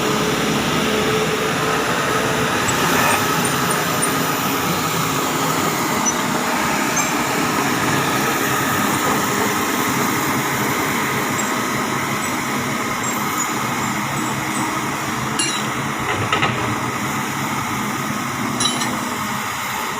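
Kobelco SK200 excavator's diesel engine running steadily, with a few short metallic clinks near the end.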